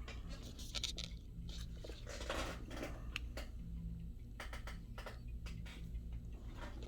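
Scattered small clicks and scratchy scraping of small objects being handled on a work surface, over a steady low hum.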